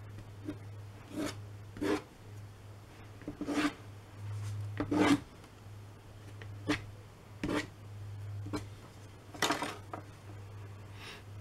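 Short scraping strokes of a small card edge dragged across damp watercolour paper, lifting paint, about ten strokes spaced irregularly, the strongest about five seconds in and again near the end, over a steady low hum.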